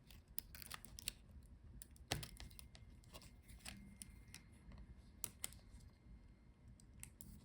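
Faint, scattered small clicks and taps of a laptop's internal parts being handled, as ribbon-cable connectors are unplugged and their plastic retaining clips snapped shut. The sharpest click comes about two seconds in.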